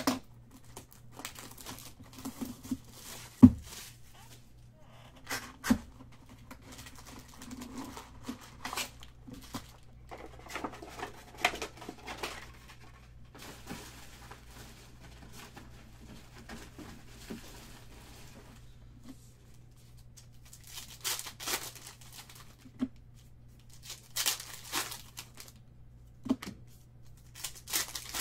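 Foil trading-card packs and their box packaging being handled, crinkled and torn open in short rustling bursts, with one sharp knock about three and a half seconds in.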